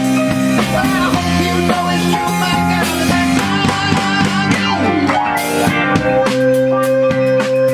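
Live rock band playing with keyboard, electric guitar and drum kit under a steady drumbeat. Some notes bend in pitch partway through, and a long note is held over the last few seconds.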